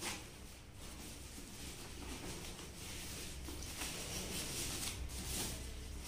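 Thin plastic bag rustling and crinkling as a motorcycle helmet is worked out of it, with a short click at the start and busier rustling about two-thirds of the way through.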